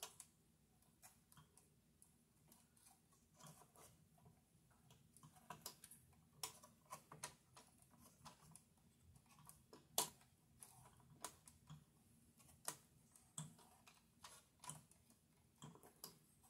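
Faint, irregular clicks and taps of fingers handling the circuit board, wiring and parts inside an opened CD player's metal chassis, with one sharper click about ten seconds in.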